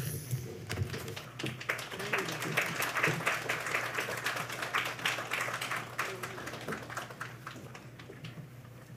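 Audience applauding: the clapping builds over the first couple of seconds, then gradually thins and dies away near the end.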